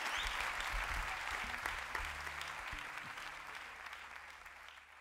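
Audience clapping in applause, fading away steadily toward the end.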